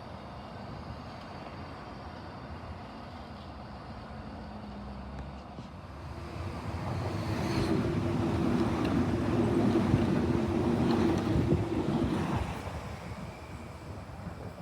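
A train passing: it grows louder about halfway through, holds a steady hum over its rumble for a few seconds, then fades away near the end.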